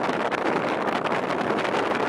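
Steady rush of wind and water around a sightseeing boat, with wind buffeting the microphone.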